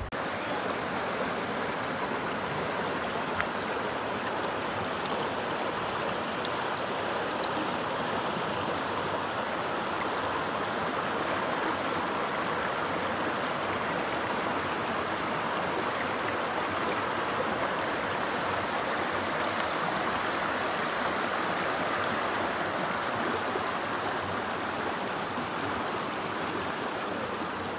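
Small river running steadily: an even, unbroken rush of water.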